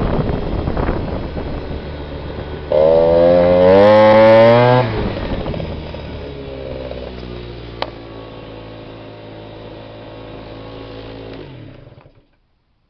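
Two-stroke BW's scooter engine with a Stage6 Racing kit and Athena Evo expansion-chamber exhaust, under way. About three seconds in, the throttle is opened hard and the engine note climbs for about two seconds. Then it drops off and the note slowly sinks as the scooter slows, until the sound cuts off near the end.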